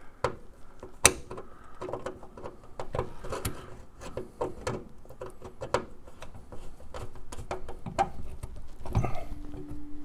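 Hands working on a car's ignition coil, its mounting clamp and wires: scattered small clicks, taps and rustles, the sharpest about a second in. A faint steady hum comes in near the end.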